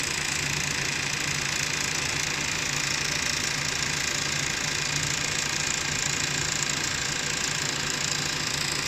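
Industrial sewing machine running continuously as it sews white zipper tape, a steady mechanical running noise over a constant low hum.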